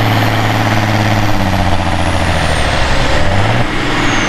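Pulling tractor's turbocharged six-cylinder Mercedes OM352 diesel running hard, its pitch dropping in steps as it pulls against the sled, with a high turbo whine falling slowly.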